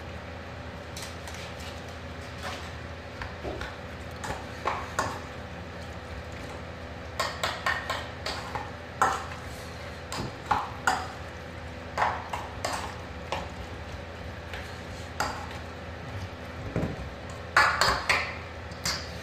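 Stainless steel bowl clinking and ringing as hands toss and mix chopped chicken shawarma meat in it, with irregular taps and scrapes and a louder clatter near the end. A steady low hum runs underneath.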